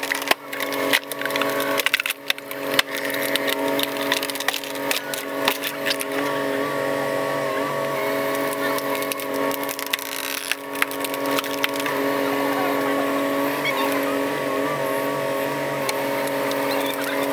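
A heavy machine's engine running steadily, with sharp cracking and splintering of wood over the first several seconds.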